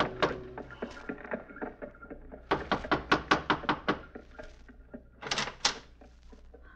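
Radio-drama sound effect of knuckles rapping on a wooden door: a quick run of knocks about two and a half seconds in. It is followed by two sharper clacks of the door being opened about five seconds in. A sustained music cue dies away in the first second.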